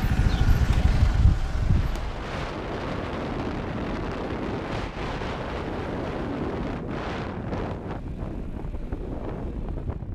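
Small motorcycle's engine running with a low pulsing beat for about the first two seconds as it pulls away, then mostly wind rushing over the microphone as it rides along the road.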